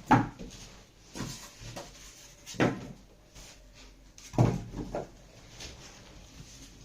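Cardboard box and packing being handled while the keyboard is lifted out: a series of separate dull knocks and thumps, the loudest at the very start, about two and a half seconds in and about four and a half seconds in.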